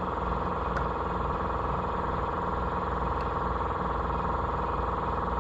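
Air compressor running steadily, a constant even drone, while inflating a tractor tire and tube.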